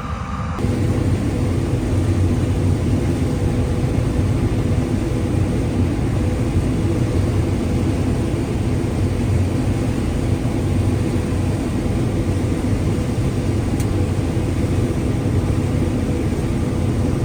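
John Deere combine running steadily while harvesting corn, a loud even drone with a low hum. It steps up in level about half a second in.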